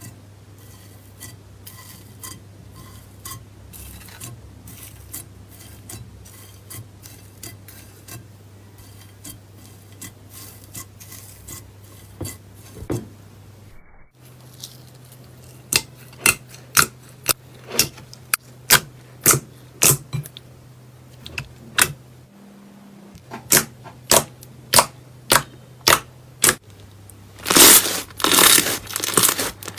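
Slime being pressed and squeezed by hand: small crisp clicks and pops at first, then louder sharp pops about two a second, and a dense crunchy crackling near the end.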